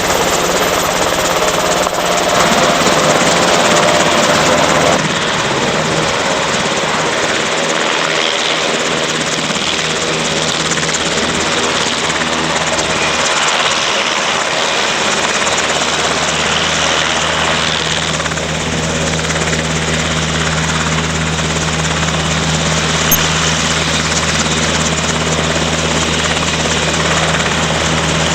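Helicopter landing, its rotor and engine running loud and continuous. A steady low hum grows stronger about halfway through.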